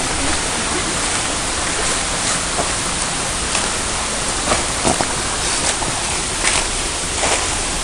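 Steady rush of creek water, with a few light knocks in the second half.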